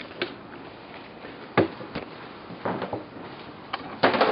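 Scattered light knocks and clicks, about six in all, with a longer rustling clatter near the end.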